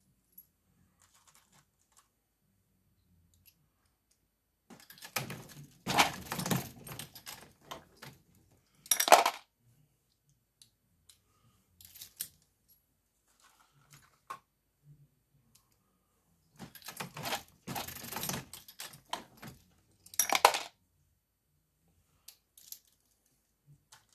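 Brass cartridge cases clinking and rattling as 9mm rounds are loaded on a Dillon reloading press. The sounds come in two bursts, each ending in a loud metallic clack.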